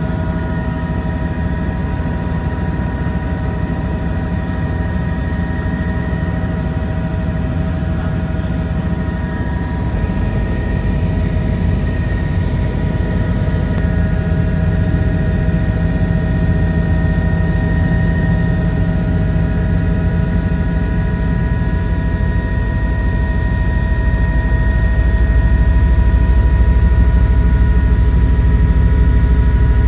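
Steady drone of a helicopter heard from inside its closed cabin: a deep rumble under several steady high whining tones, growing a little louder near the end.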